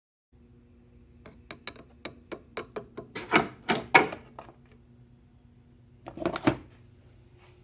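A run of sharp clicks and knocks, about four a second and growing louder, then a short cluster of knocks near the end, over a faint steady hum.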